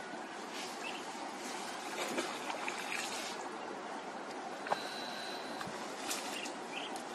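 Water trickling with small splashes as macaques move in the shallow edge of a pond, over a steady outdoor background hiss. A single sharp click comes a little past the middle, followed by a brief high steady tone.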